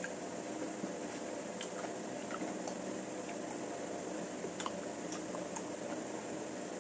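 A person eating salmon head in sour broth close to the microphone: scattered small wet chewing and lip-smacking clicks over a steady fan hum.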